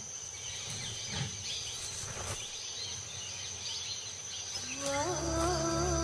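Forest ambience with a steady high-pitched insect drone and a few faint clicks. About five seconds in, background music fades in with a rising, then held, note.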